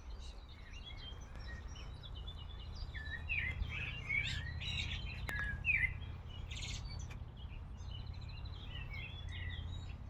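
Several small songbirds chirping and twittering, many short calls and trills overlapping, over a steady low background rumble.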